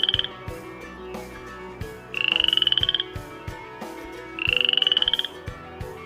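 A frog calling: short pulsed trills with a slightly rising pitch. There are two full calls about two seconds apart, plus the tail of one as the sound begins.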